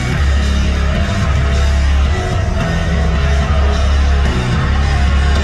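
Loud rock music with a heavy, steady bass.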